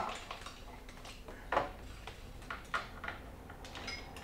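Hands working among a motorcycle's side panel and wiring: a string of irregular light clicks and plastic rattles, the sharpest about a second and a half in, with a brief squeak near the end.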